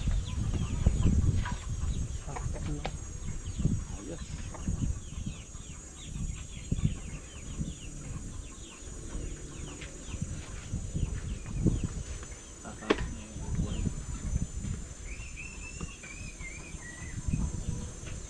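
Chickens clucking and chirping in the background, with a wavering call about fifteen seconds in. Irregular low rumbles run underneath, and there is a single sharp click about thirteen seconds in.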